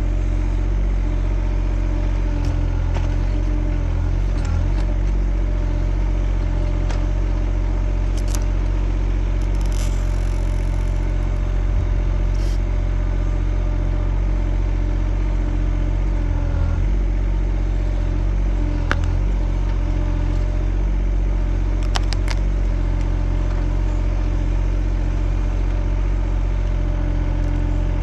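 Kymron XH20D mini-excavator engine running steadily, with a few short sharp clicks and clanks now and then.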